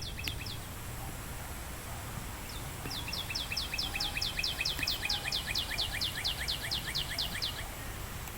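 A bird calling in a fast run of short, high, descending chirps, about five a second, starting about three seconds in and stopping near the end, over a steady low rumble.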